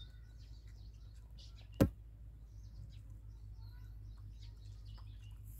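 Small birds chirping now and then over a steady low hum, while a dog chews and picks at flatbread with small soft crunches. One sharp click a little under two seconds in is the loudest sound.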